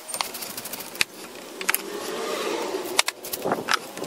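Ratchet wrench with a 10 mm socket clicking on a car battery terminal nut, then metal clicks and scraping as the loosened terminal clamp is worked off the battery post.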